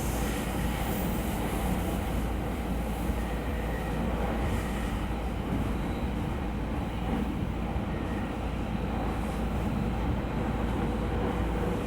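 Running noise heard inside a JR East E231 series electric train: a steady rumble of wheels on rail and the moving car.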